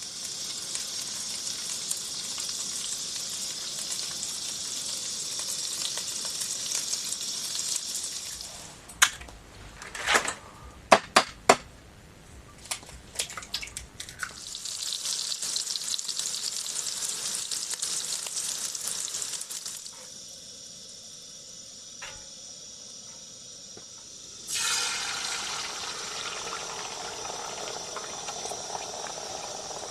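Food sizzling in a hot frying pan, in stretches that start and stop abruptly. In the middle there is a cluster of sharp clicks and knocks, like a utensil against the pan.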